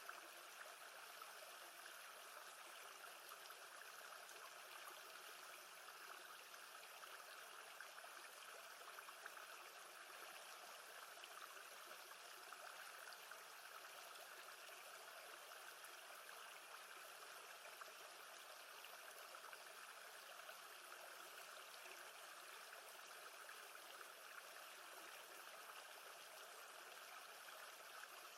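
Faint, steady sound of calm lake water, an even wash of water noise with no distinct splashes.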